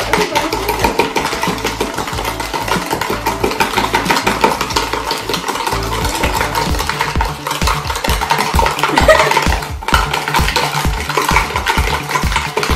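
Two metal spoons beating dalgona mixture of instant coffee, sugar and water by hand in small plastic containers: rapid, continuous clicking and scraping of spoon against container as the mixture is whipped toward a froth.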